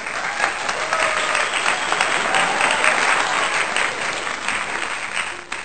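A crowd applauding: many hands clapping at once, dense and loud, with a few voices mixed in.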